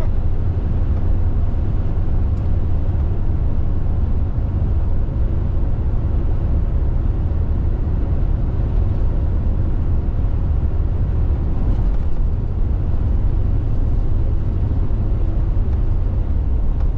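A car driving on the highway: a steady low road rumble with tyre and wind noise, unchanging throughout.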